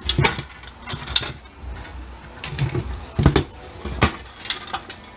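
Irregular knocks and clicks of metal parts and hand tools being handled during dismantling of a machine, with a low rumble underneath.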